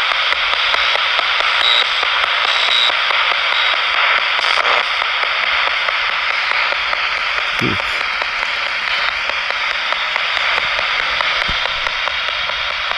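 Steady hiss of radio static with faint ticks scattered through it, and one short low bump about eight seconds in.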